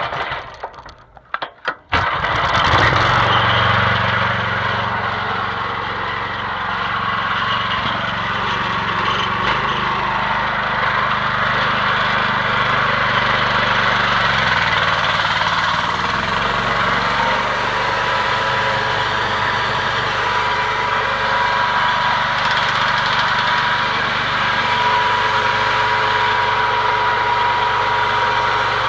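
Gasoline engine of a homemade bandsaw mill starting about two seconds in after a few clicks and knocks, then running steadily. A thin steady whine joins the engine about halfway through.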